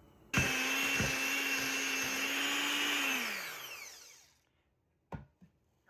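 Electric mixer running at steady speed, beating cream cheese frosting, then switched off and winding down with a falling pitch. A single sharp knock comes about five seconds in.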